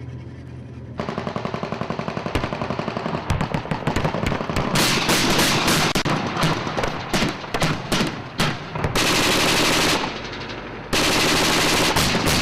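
Machine-gun fire: rapid automatic shots starting about a second in, growing louder and almost unbroken from about five seconds in, with a short lull near the end before another long burst.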